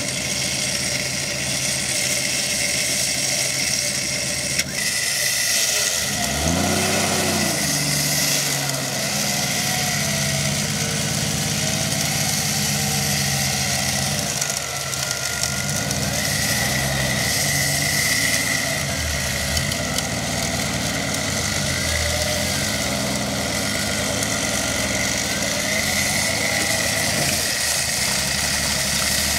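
Off-road 4x4 engine running, mostly idling, revved up and back down once about six seconds in, with smaller changes in engine speed later.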